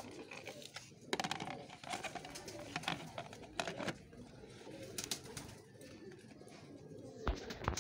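Domestic pigeons cooing steadily, with a handful of sharp clicks and knocks from plastic lids and tubs being handled.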